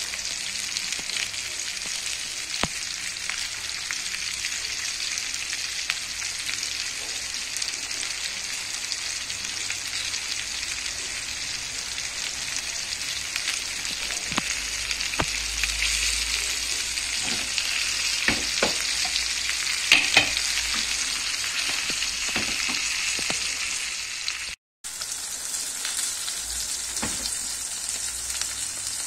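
Small cornflour-coated whole fish sizzling in hot oil in a frying pan: a steady hiss with scattered pops and crackles, a few sharper ones about twenty seconds in. The sound cuts out for a moment a few seconds before the end.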